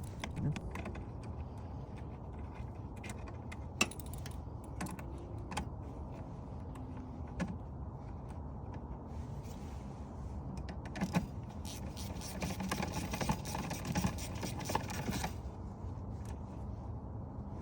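Hand tools working small bolts: scattered metallic clicks and clinks of a wrench on the bolt heads, with a stretch of rapid fine clicking about two-thirds of the way through.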